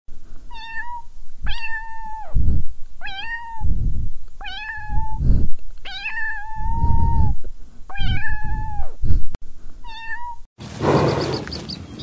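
Domestic cat meowing seven times, each meow about a second or less and the longest about halfway through, with dull low thumps between them. Near the end the meowing stops and a rushing outdoor noise with a few faint high chirps takes over.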